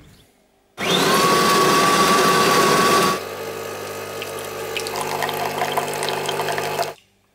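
Automatic bean-to-cup coffee machine making a coffee: about two seconds of loud whirring with a steady whine from the bean grinder, then the quieter steady hum of the pump as coffee streams from both spouts into a mug. The sound cuts off sharply near the end.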